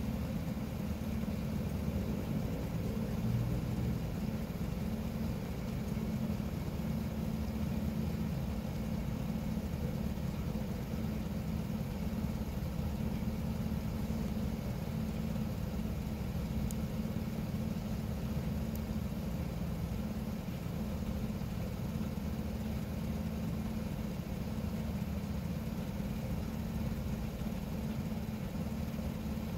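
A motor vehicle engine idling steadily: an unchanging low hum.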